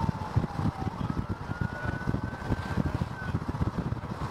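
A vehicle driving at speed, with road noise and wind buffeting the microphone in irregular low thumps. A faint high tone drifts slowly in pitch over it.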